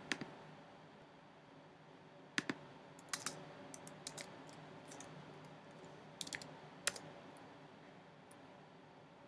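Faint, scattered clicks at a computer: pairs and small clusters of sharp taps of keys and mouse buttons, a few at a time with pauses between.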